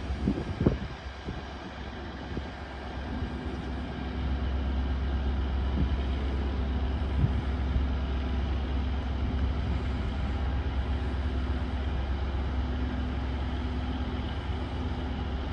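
Diesel train's engine running steadily, a deep rumble with a steady hum that builds about three to four seconds in and then holds.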